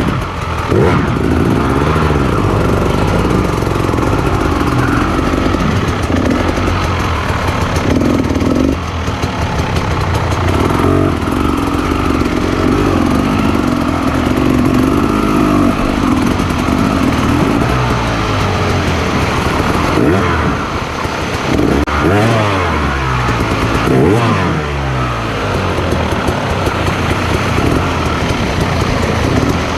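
Motorcycle engine running under way on a trail, its pitch rising and falling with the throttle, with a few quick revs about two-thirds of the way through.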